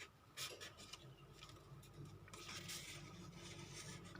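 Faint rustling and scraping of paper as a paper tag is slid into a paper pocket, in a few short brushes.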